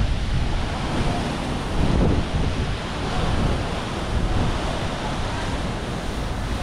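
Wind buffeting the microphone over the steady splashing of a multi-jet plaza fountain.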